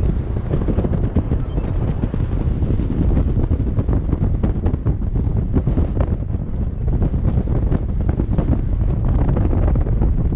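Airflow buffeting the microphone of a paraglider pilot's camera in flight: a loud, continuous low rumble that flutters in quick gusts.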